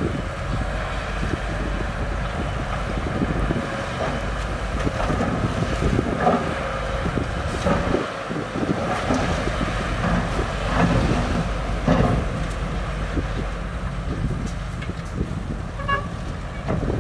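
Heavy earthmoving machinery running at a landfill fill, with a steady low engine rumble and scattered clanks. A short beep sounds near the end.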